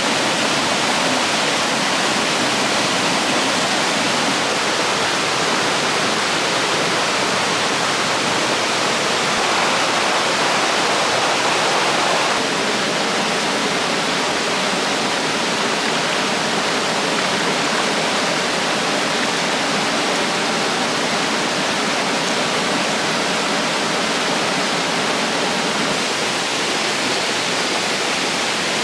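A river rushing steadily.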